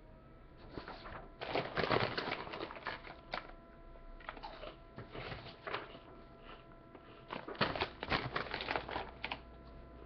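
Sheets of paper and a plastic corn chip bag being handled, rustling and crinkling in irregular bursts.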